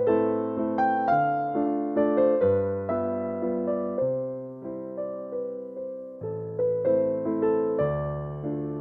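Slow, gentle background music on piano or electric piano: repeated soft notes over a chord that changes every couple of seconds.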